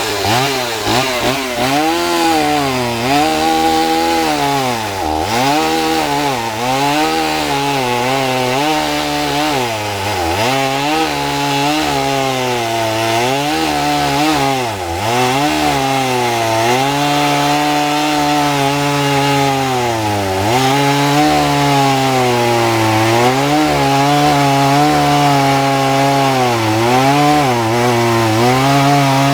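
Two-stroke chainsaw running at full throttle and cutting into a wooden log to square off a block for carving. Its pitch drops each time the chain bites into the wood and rises again, over and over.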